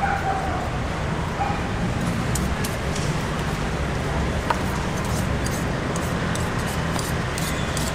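Outdoor market ambience: a steady low hum of traffic with scattered light clicks and knocks, and a couple of short high-pitched cries within the first second and a half.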